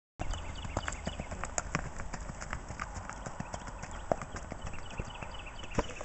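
Rapid, even hoofbeats of a ridden racking horse moving at gait over dry dirt ground.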